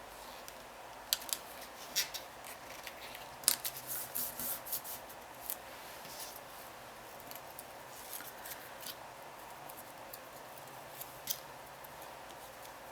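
Small cardstock pieces being handled and pressed together on a craft table: scattered sharp clicks and short rustles, busiest around the fourth and fifth seconds.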